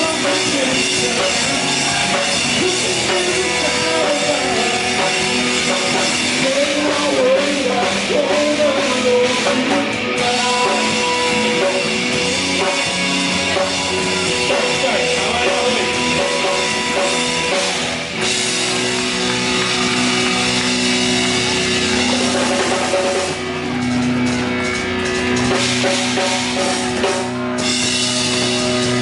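Rock band playing live on drum kit and guitar, with a voice singing in places.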